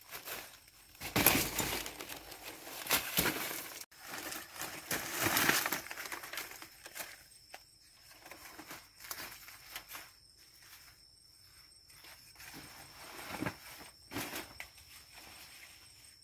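Banana leaves and undergrowth rustling and crackling as a cut bunch of green bananas is handled and carried through the plants. The sound is loudest in the first six seconds, then turns to scattered crackles with two louder rustles near the end. A faint steady high tone comes in about six seconds in.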